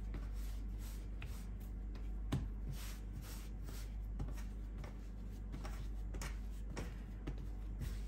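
Hands kneading a ball of shortcrust pastry dough on a floured worktop: soft, irregular rubbing and pressing strokes, about two a second.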